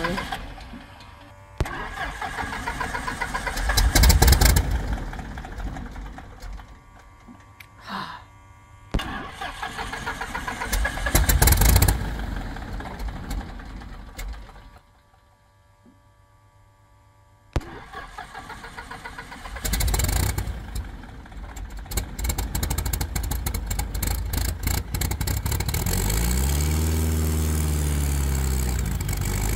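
A light airplane's piston engine, long stored, being started. It fires in a few loud bursts, stops briefly, then catches and runs unevenly. Near the end its speed surges up and falls back, and it does not sound healthy.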